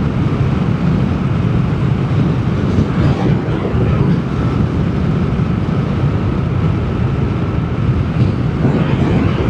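Steady wind rush and road rumble while riding a Vespa GTS 300 scooter at cruising speed, with the scooter's running faintly underneath and a faint steady whine partway through.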